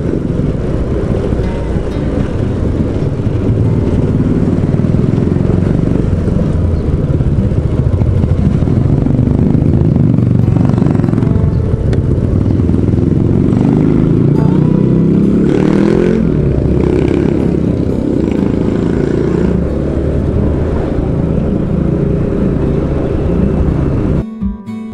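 Motorcycle engine running with wind rushing over the onboard camera's microphone as the bike rides along. Acoustic guitar music cuts in right at the end.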